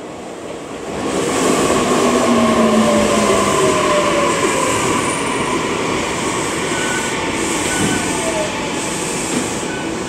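Tokyu Ikegami Line electric commuter trains, among them a 1000-series set, pulling into the station. The running and wheel noise is loud, and a motor whine falls slowly in pitch as the trains brake to a stop.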